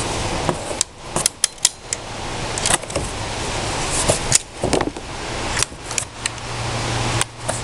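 Unboxing handling noises: a string of sharp clicks and short rustles from packaging and the parts being handled, over a steady background hiss.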